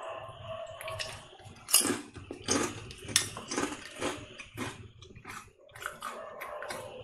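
Ridged Bingo potato chips being bitten and chewed close to the microphone: a run of sharp, brittle crunches, the loudest just before two seconds in and at about three seconds in.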